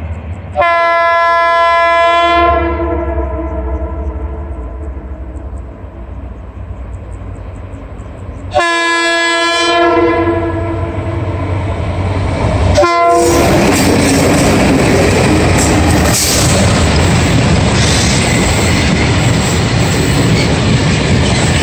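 Freight train double-headed by TCDD DE22000-class diesel-electric locomotives: the horn sounds a long blast about a second in and another a little past the middle, then a short toot, over a low engine rumble. The locomotives and container wagons then pass close by with a loud, steady rolling clatter of wheels on rail.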